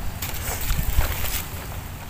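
Low rumble of wind buffeting the microphone, with a few faint rustles.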